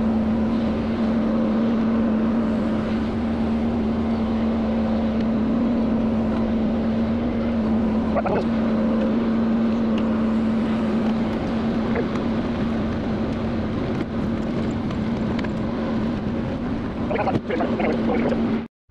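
Hyundai excavator's diesel engine and hydraulics running steadily, heard from inside the cab, with a constant hum while it travels carrying a concrete block from the bucket. A few short knocks come near the end.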